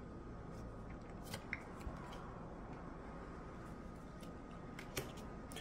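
Trading cards being handled: a few faint, short clicks of card stock, about a second in, and again near the end, over a quiet room background.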